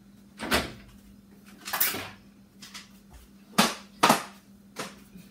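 Knocks and clatters of kitchen things being moved about in cupboards: about five separate bumps, the loudest two close together a little past the middle.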